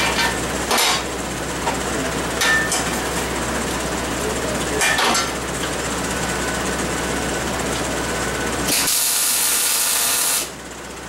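Wire-feed (MIG) welder laying a bead of about two seconds on steel rectangular tubing: a loud, steady hiss that cuts off sharply near the end. Earlier there are a few short, sharp bursts, over a steady shop hum.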